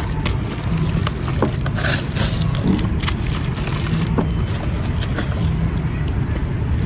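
Wet marble-powder clumps crumbling by hand: soft gritty crunching with scattered small crackles over a steady low rumble.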